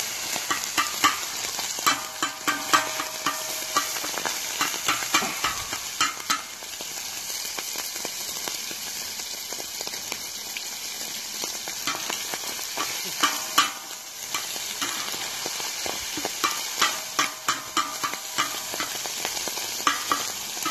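Sausage browning and sizzling on a hot steel plow-disc cooker, a steady sizzle throughout. A metal spatula scrapes and clacks against the disc in several runs of quick strokes, near the start, a few seconds in, around the middle and near the end.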